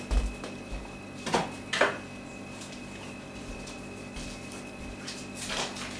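A few scattered knocks and scuffs, two close together about a second and a half in and another near the end, over a steady electrical hum.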